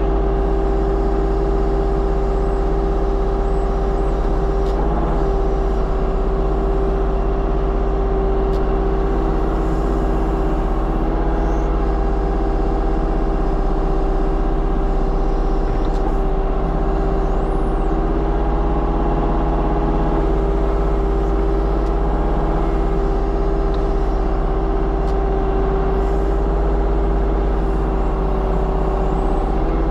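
Diesel engine of a compact construction machine running steadily at constant speed, with a steady droning tone.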